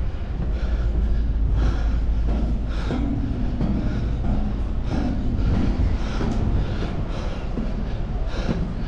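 Footsteps climbing a steel ship's ladder and crossing a steel deck, knocking about once a second over a steady low rumble.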